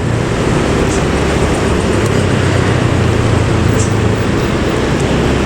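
A bus engine and exhaust droning steadily with a low hum, amid dense road traffic.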